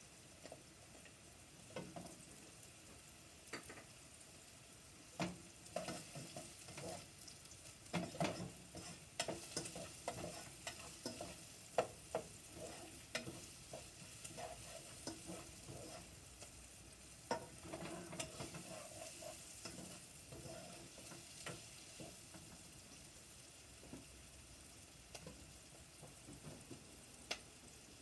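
A utensil stirring food in a saucepan, knocking and scraping against the pot in irregular clicks that come thickest from about five to twenty-two seconds in, over a faint steady sizzle of frying.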